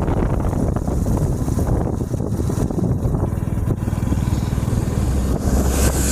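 Steady vehicle engine and road rumble heard from on board a moving vehicle.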